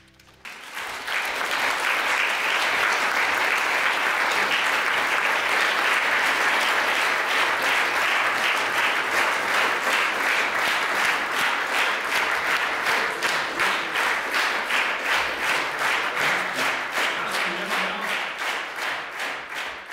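Concert audience applauding, breaking out suddenly about half a second in. In the second half the clapping settles into a steady unison rhythm, about three claps a second.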